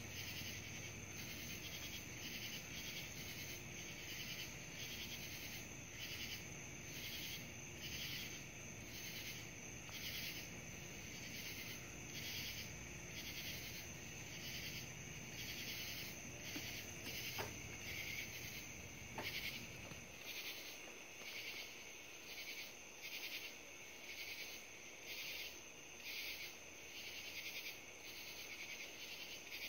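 Night insects, crickets among them, chirping in a steady pulsing chorus of about two pulses a second. Beneath it a low steady hum runs and then cuts off abruptly about two-thirds of the way through.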